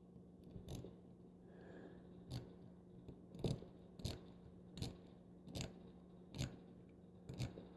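Small metallic clicks of a lock pick and tension wrench working the spool pins of a Brinks padlock, about eight sharp clicks spaced under a second apart while the pins are being set again.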